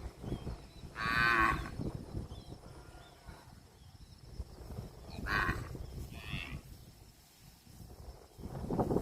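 Cattle mooing: a short, loud call about a second in, then a second shorter moo about five seconds in.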